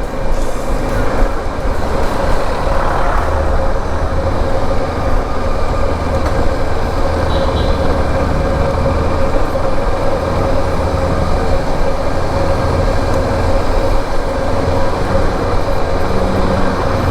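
KTM motorcycle engine running steadily while riding, with wind and road noise. It runs smoothly, freshly serviced.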